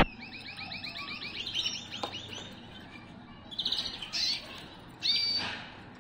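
Male agate canary singing: a fast rolling trill of rapidly repeated notes, then shorter chirped phrases after a pause. A sharp click right at the start is the loudest sound, with a fainter one about two seconds in.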